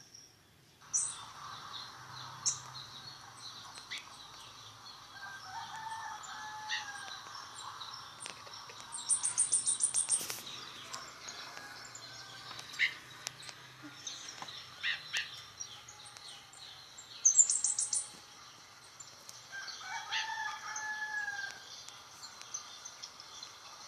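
Scarlet-headed flowerpecker calling: scattered thin, very high chirps and, twice, a rapid high-pitched trill lasting about a second. Lower, longer calls of other birds sound behind it.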